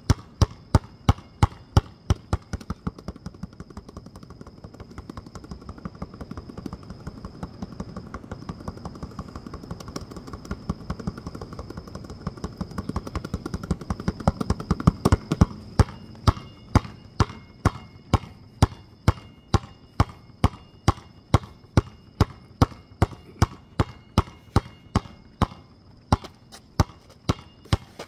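Basketball being dribbled on pavement in a steady rhythm of about two hard bounces a second. Through the middle stretch the dribbles turn quicker and softer, then go back to the harder two-a-second bounce.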